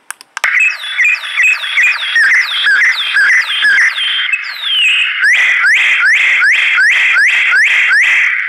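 Sound-effect playback through small loudspeakers: a loud, fast run of repeated chirps sweeping down in pitch, switching to rising chirps about five seconds in, roughly two a second. It starts just after a couple of clicks, as track 000 begins when remote button A is pressed.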